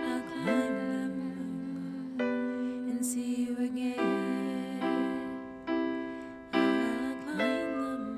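Instrumental break in a slow, gentle song: piano chords held and changed every second or two.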